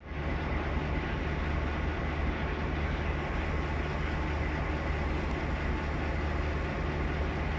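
Nohab M61 diesel locomotive's two-stroke EMD V16 engine idling with a steady low drone.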